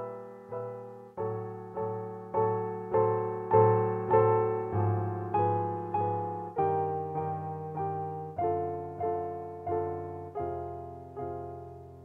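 Digital piano played with both hands: chords struck in a steady pulse, a little under two a second, each dying away before the next, the harmony shifting every couple of seconds. It swells to its loudest about four seconds in and grows softer toward the end.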